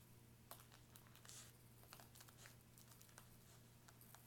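Near silence: faint scratches and light crinkles of a pen being drawn across a mesh wig cap over a plastic-wrapped wig block, over a low steady hum.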